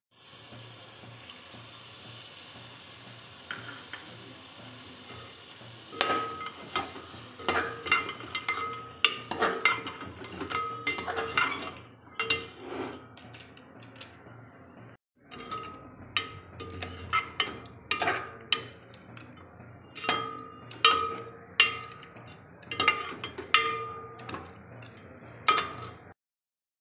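A metal ladle stirring chicken in a metal cooking pot, knocking against the pot again and again so that it rings briefly with each strike, over a steady sizzle of frying. The knocks start about six seconds in and break off briefly in the middle.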